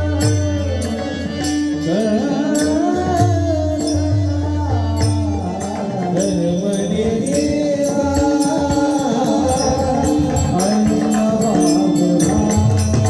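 A male voice singing a Marathi devotional song in a high register, with sustained, gliding notes. A steady held accompaniment tone runs underneath, with a drum and small hand cymbals keeping time.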